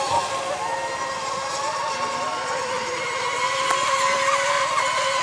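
Electric racing RC monohull boats running flat out in the Mini Mono class, a steady high-pitched motor whine that wavers slightly in pitch.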